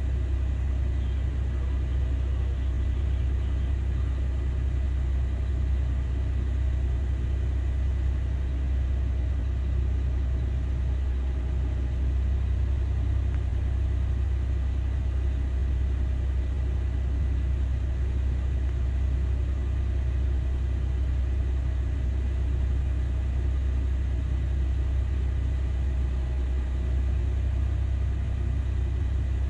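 Caterpillar 6020B hydraulic mining shovel's diesel engine running, a steady low rumble that holds unchanged, with no revving.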